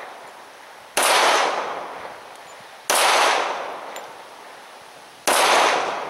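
Three .45 ACP shots from a Colt Lightweight Commander 1911 pistol fired in slow, deliberate succession, about two seconds apart. Each sharp report is followed by an echoing decay lasting about a second.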